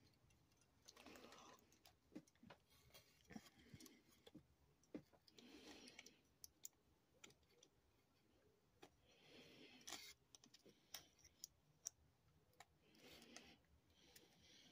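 Faint handling of plastic model parts and packaging: scattered light clicks and a few short bouts of plastic rustling.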